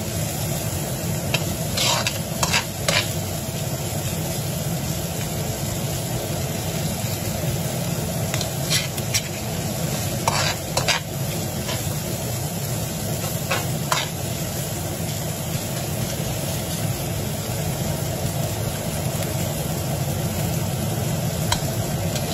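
Diced vegetables and salmon sizzling in a stainless steel frying pan while a metal spoon stirs them, scraping and clicking against the pan now and then.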